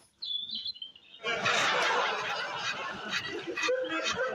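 Sitcom studio audience laughter, a dense burst of many people laughing that starts about a second in, after a brief faint high-pitched sound.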